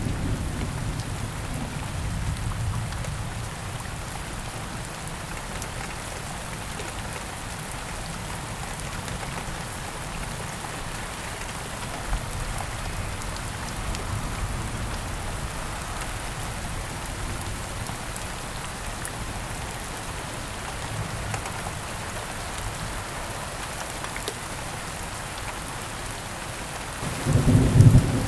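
Steady rain falling, with thunder rumbling low on and off. A louder roll of thunder starts just before the end.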